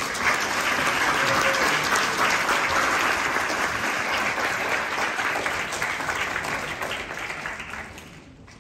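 Audience applauding, a dense patter of many hands clapping that begins at once and dies away near the end.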